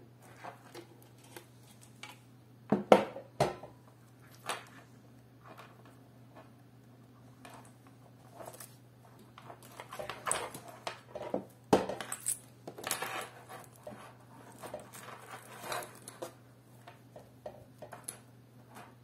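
Handling noise from a computer power supply and its cables: two sharp knocks about three seconds in as the metal unit meets the wooden desk, then scattered clicks and rustles of the bundled wires and plastic connectors being pulled out and sorted, busiest in the middle.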